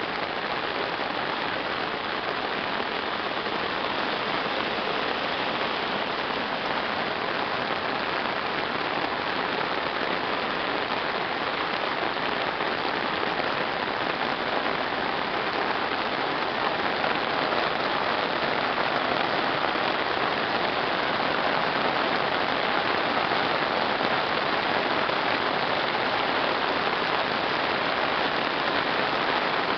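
Heavy downpour: a steady hiss of rain pelting an asphalt road, growing a little louder in the second half.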